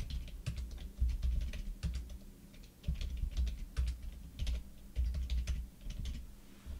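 Typing on a computer keyboard: quick runs of key clicks separated by short pauses between words.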